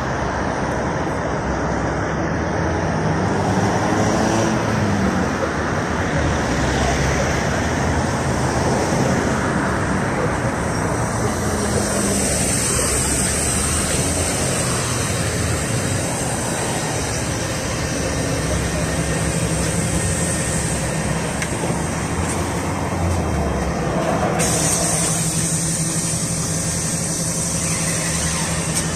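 City road traffic passing at a roadside stop, then a Volgabus-5270.G4 city bus with a Weichai compressed-natural-gas engine standing at the stop with the engine idling, a steady low hum through the second half.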